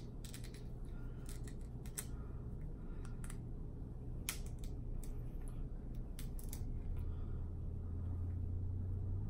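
Snow crab leg shell being cracked and worked apart by hand, with scattered sharp clicks and crackles as the meat is pushed out of the shell. A steady low hum lies underneath and grows louder near the end.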